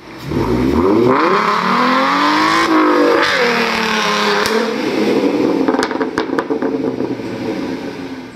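Car engine revving, its pitch climbing for the first few seconds, dipping and rising again, then held high in a tyre-spinning burnout. A few sharp clicks come about six seconds in.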